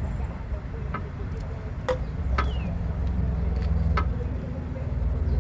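A few sharp metallic clicks and knocks from brake parts and tools being handled, over a steady low rumble.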